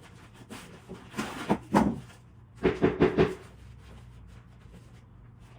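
Two quick runs of sharp knocks and clatters, the first about a second in and the second a little later, over a faint steady hum.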